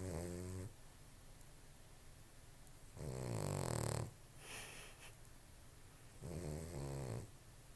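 Dog snoring loudly: three long snores about three seconds apart, the middle one loudest, with softer breathing between.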